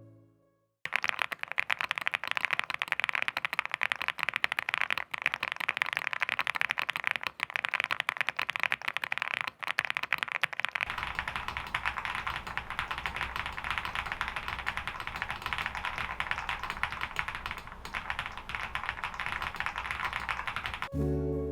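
Fast continuous typing on a Meletrix Zoom TKL DYNA aluminium keyboard, a dense run of key clicks starting about a second in. About halfway a steady low hum joins underneath the keystrokes.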